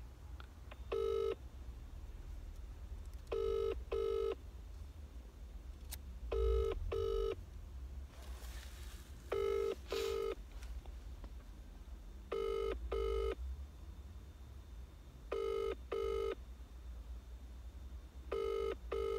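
British telephone ringback tone from a phone on loudspeaker: a double 'brr-brr' ring repeating about every three seconds, seven rings going unanswered while an outgoing call waits to be picked up.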